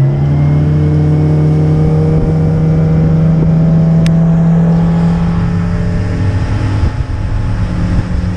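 A flat boat's outboard motor running at speed, its pitch climbing gently over the first few seconds as the boat gets under way, then holding steady.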